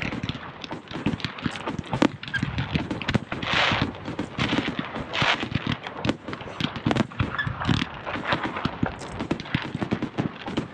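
Aerial fireworks display: a running stream of bangs, pops and crackles from shells launching and bursting, with a few short stretches of hissing crackle.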